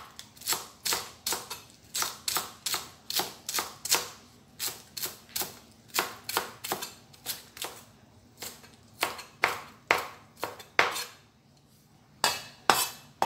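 Chinese cleaver chopping flowering chive stems on a cutting board: a steady run of sharp knocks, about three a second. After a brief pause near the end come two louder knocks.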